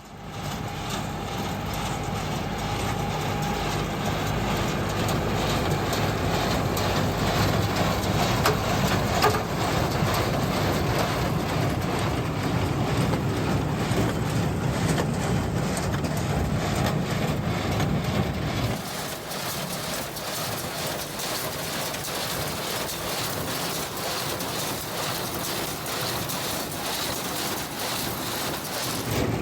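1960s New Holland hay baler running in the field, a dense steady clatter of machinery over a deep engine drone. About two-thirds of the way through the deep drone drops away and the higher mechanical clatter continues.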